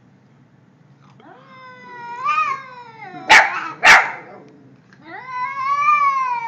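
Cat yowling in a long, drawn-out rising cry, then hissing sharply twice about half a second apart, then yowling again in a long wavering cry: a frightened, defensive cat warning off a threat.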